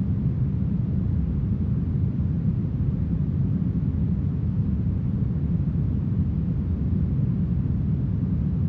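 Steady brown noise: a smooth, deep, unchanging rush with its weight in the low end and little hiss on top.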